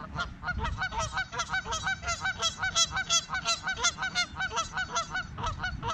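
Canada geese honking in a rapid run of short calls, about four a second, the agitated honking of a goose fight.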